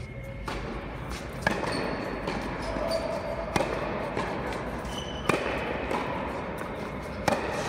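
Tennis rally: sharp racket strikes and ball bounces on a hard court, a pop every second or two, echoing in a large indoor hall.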